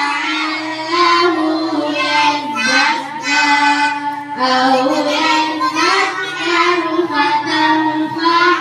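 A group of young children chanting Qur'anic verses together in unison, a sing-song memorization recitation with long held notes.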